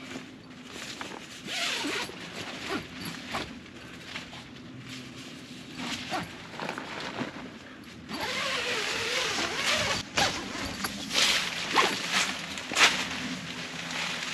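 Tent door zipper being pulled open: a few short rasps, then a longer steady run about eight seconds in, followed by sharp snaps and rustling of the tent fabric as the flap is pushed aside.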